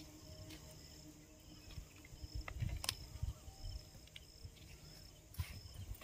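Faint outdoor ambience by a pond: a high, thin insect trill that comes and goes in short spells over a low rumble on the microphone. A few sharp clicks and thumps stand out, the loudest about three seconds in.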